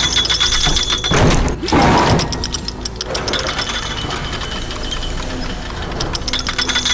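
Cartoon machinery sound effects: a rapid mechanical clicking like a ratchet or gears turning over a steady low rumble, broken by two short whooshing sweeps about one and two seconds in.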